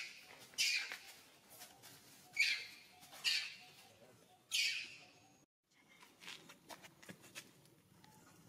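A macaque screaming: short shrill cries that fall in pitch, four of them in the first five seconds. After a sudden break they stop, leaving only faint clicks and rustling.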